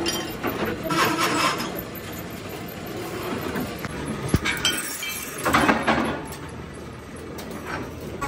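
Metal clanking and scraping from work at a metal lathe as a steel bar is handled against it, with louder clattering about a second in and again around five and a half seconds in, and one sharp click just after four seconds.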